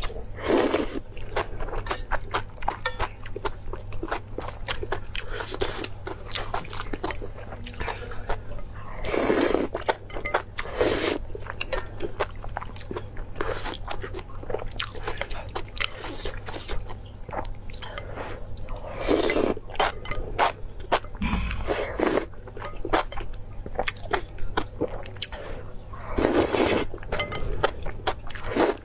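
Noodles slurped up from chopsticks in a series of pulls of about a second each, with wet chewing and small mouth clicks in between.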